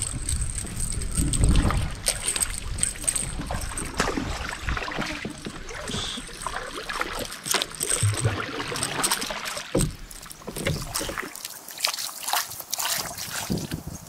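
Canoe on a river: water splashing and lapping around the hull, with scattered short knocks and clicks against the boat.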